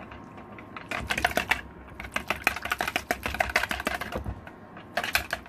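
Wire whisk beating egg and softened cream cheese in a bowl, the wires clicking rapidly against the bowl's sides. It runs for about three seconds, stops, then briefly starts again near the end.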